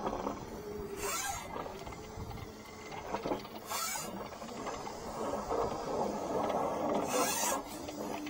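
High-pressure sewer jetter running steadily, with three short hissing bursts about a second, three and a half seconds and seven seconds in.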